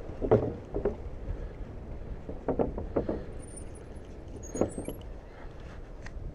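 Wind buffeting the microphone, with a few sharp knocks and rattles as a mountain bike rolls over the wooden boards of a pier: a couple near the start, a cluster about two and a half to three seconds in, and one more near four and a half seconds.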